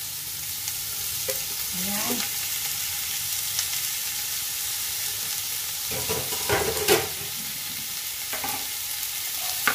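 Chicken, onion and garlic sizzling steadily in a frying pan, with a wooden spatula stirring, scraping and knocking against the pan; the loudest knocks come about two-thirds of the way through.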